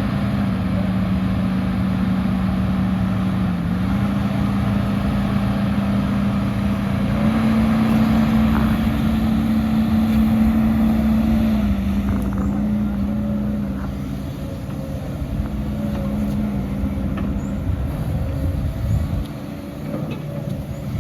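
Diesel engine of heavy earthmoving machinery running under work, a steady drone whose pitch steps up and down as the engine speed changes, with a few faint knocks.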